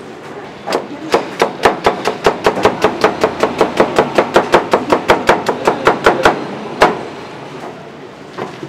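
Rapid knife chops cutting a slab of oranda, a crunchy puffed-grain snack bound with syrup, into pieces on a board: an even run of sharp knocks, about five a second, for roughly six seconds.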